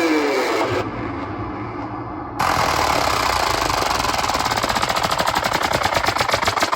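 Sound-check effects track played through a DJ sound system: a muffled low rumble for about a second and a half, then a bright hissing build-up of rapid beats that speeds up.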